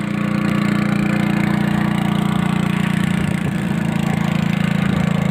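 A small boat's engine running at a steady speed with an even low hum while the boat is under way.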